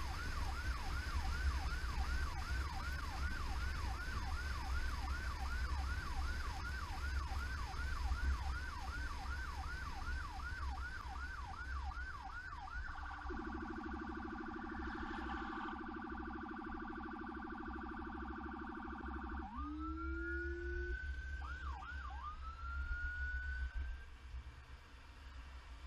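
Emergency vehicle electronic siren in fast yelp, about two sweeps a second. Roughly halfway through it switches to a steady, rapidly warbling tone joined by a lower steady tone. That gives way to a few rising wails and short yelps before it cuts off about a second before the end, over the low rumble of the moving vehicle.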